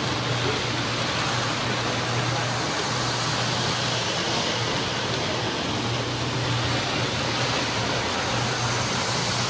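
Several O-gauge model trains running on a three-rail Lionel layout: a steady rolling rumble and whir of wheels on metal track, with a low hum that swells and fades.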